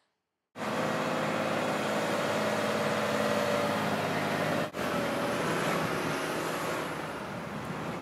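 Concrete mixer truck's diesel engine running as the truck drives slowly, a steady drone. It starts about half a second in and breaks briefly a little after the halfway point.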